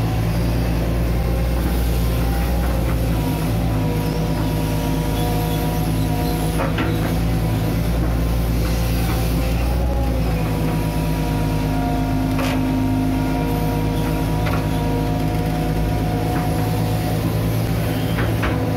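Hitachi Zaxis 130 amphibious excavator running steadily at work: a diesel engine drone with a hydraulic whine that shifts slightly in pitch, and a few sharp metal clanks, several of them near the end.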